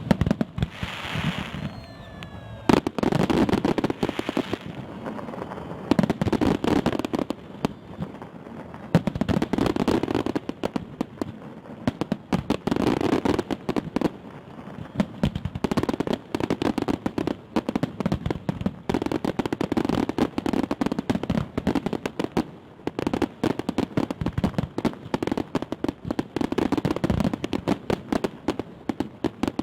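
Fireworks salute going off: a dense, continuous crackle of bursting charges, with heavier booms roughly every three seconds and a few short falling whistles near the start.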